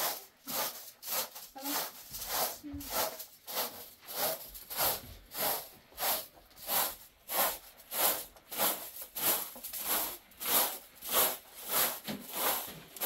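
Steady rhythmic swishing strokes, about three every two seconds.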